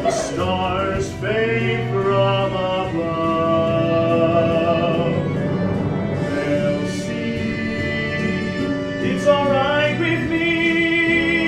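A man singing a show tune on stage, with instrumental accompaniment; the sung notes are drawn out and held.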